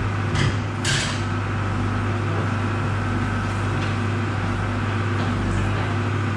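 Two short metal clanks from hand tools, about half a second and a second in, over a steady low machine hum.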